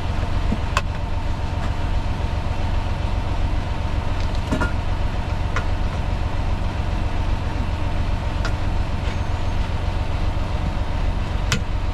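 Semi truck's diesel engine idling with a steady low rumble, with a few faint clicks over it.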